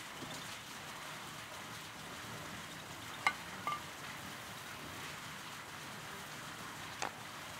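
Dishes, a clay jug and a glass set down on a rug, giving a few light clinks: one about three seconds in, another just after, and one near the end. Under them runs a steady outdoor hiss.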